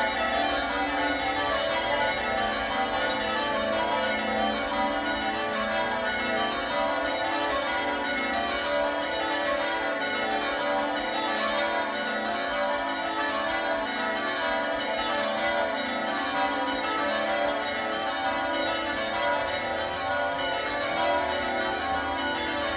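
A ring of six church bells (Gillett & Johnston, 1928, tenor in A) being rung by hand, the strikes following each other in a steady, unbroken run. The treble sounds loudest.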